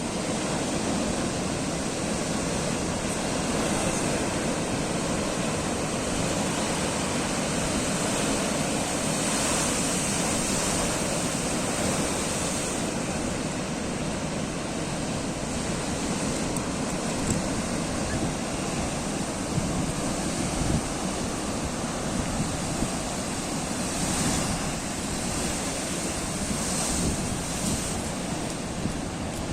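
Atlantic Ocean waves surging and breaking in a continuous rush, swelling louder about a third of the way in and again near the end, with wind buffeting the microphone.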